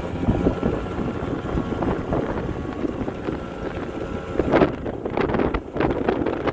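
Small two-stroke scooter engine running unevenly, its revs rising and falling in irregular surges, with rough, wind-like noise over the microphone. It has no idle and keeps running only on the throttle.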